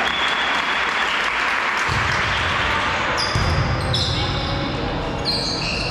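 Volleyball being played on an indoor court: athletic shoes squeak on the floor several times in the second half, over players' footfalls and a steady background hiss.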